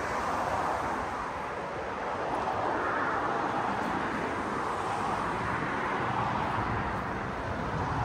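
Steady road-traffic noise, swelling over a few seconds around the middle and easing again.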